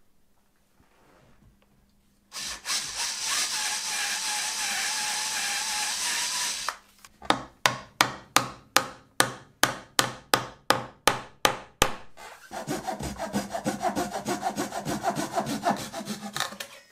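A hand tool worked back and forth against a wooden table leg, cutting wood. It starts with a few seconds of steady scraping, then separate strokes at about four a second, then quicker strokes.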